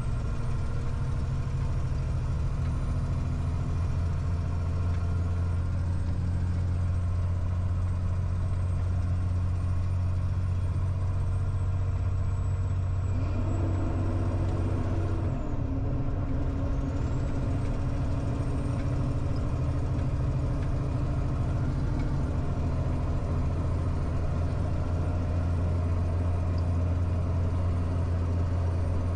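Truck's diesel engine heard from inside the cab while driving along a dirt road, a steady low drone. About 13 seconds in the engine note steps up, then settles again a couple of seconds later.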